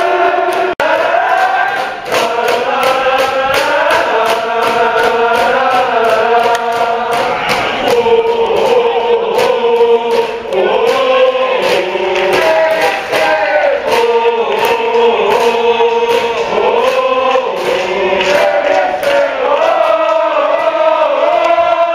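A baseball cheering section singing a fight song in unison, many voices together over a steady beat. It breaks off for an instant about a second in.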